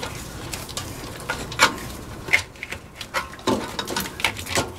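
Gloved hands working heavy electrical wires into a generator's metal junction box: irregular rustling and scraping with scattered sharp clicks and knocks, the loudest about a second and a half in and again near two and a half seconds.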